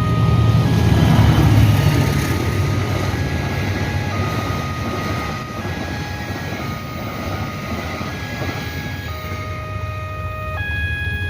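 A train passing over the level crossing: a rail rumble, loudest in the first two seconds and then easing off. Over it the crossing's electronic warning alarm sounds a steady two-tone signal, switching pitch every second or so, the warning that a train is passing.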